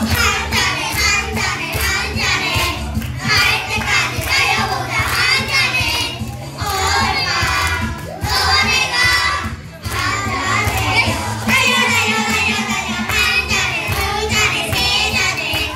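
A group of young boys singing a song together into microphones, over recorded backing music with a steady low beat.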